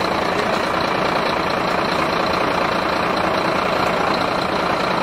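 A heavy truck's engine idling steadily.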